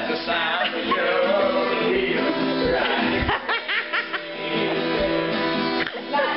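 Music: a song with singing over guitar.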